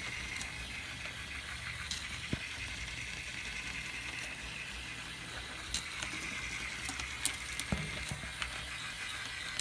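Small motor and gears of a moving toy dog, whirring and rattling steadily, with a few sharp clicks.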